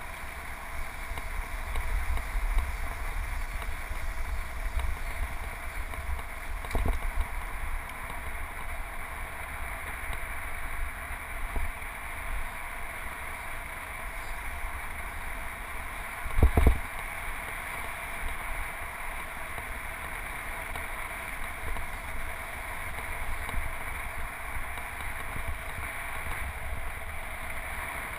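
Steady rushing of wind and road noise on a handlebar-mounted GoPro riding a road bike along a paved path, with a low rumble underneath. Two knocks stand out, the second and louder one a little past the middle.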